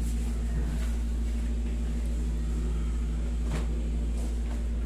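Steady low hum of a window-type air conditioner running, with a faint click about three and a half seconds in.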